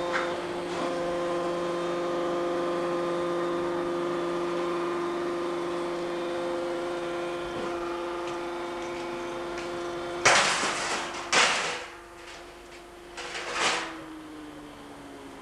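Machinery running with a steady hum of several tones. About ten seconds in come three loud, noisy bursts, each about half a second long; then the hum drops away and a single tone slowly falls in pitch.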